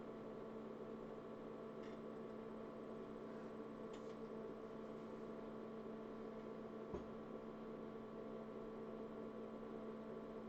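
IBM PS/2 Model 85 tower just powered on, its power supply and fans running as a faint, steady hum with several steady tones, while the system works toward its power-on self-test. A single short click about seven seconds in.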